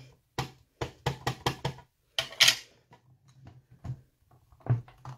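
A black ink pad dabbed repeatedly onto a rubber stamp on the clear acrylic plate of a stamp positioner: a quick run of about six sharp taps, then a brief rustle. Lighter ticks follow, and one more knock comes near the end.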